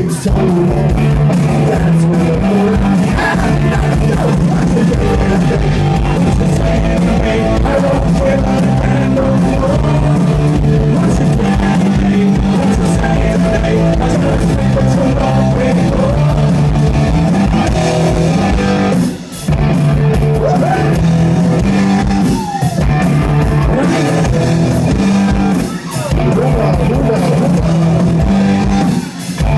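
Punk rock band playing live and loud: electric guitar, bass guitar and drum kit with a singer on microphone. The band drops out for a split second four times in the second half.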